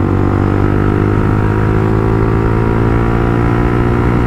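Motorcycle engine running at steady revs while riding, a constant drone with no change in pitch.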